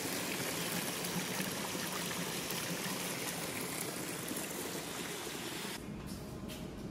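Steady splashing of water pouring from a fountain spout into a stone basin. About six seconds in it cuts off abruptly to a quieter indoor background with a few faint clicks.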